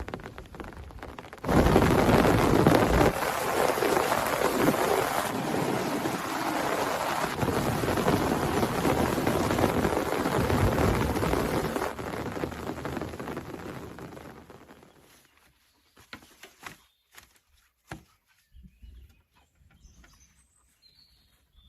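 Heavy rain pouring, with low thunder rumbling underneath. It starts abruptly a second or two in and fades away after about twelve seconds, leaving only a few faint scattered ticks.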